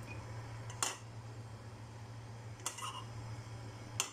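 Metal spoon and fork clinking against bowls three times as beaten egg and fried shrimp are handled, over a steady low hum.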